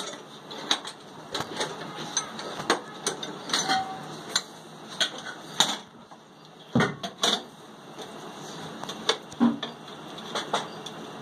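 Irregular sharp metallic clicks and knocks, about two a second, over a steady hiss, from hand work on the head of a stationary Ruston Hornsby oil engine while a flame heats it before starting. Two louder, deeper knocks come about seven seconds in. The engine itself is not yet running.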